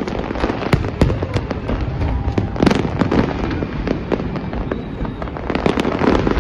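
A fireworks display: a dense run of bangs, pops and crackling from aerial shells going off, many overlapping and irregular, with a few sharper bangs standing out.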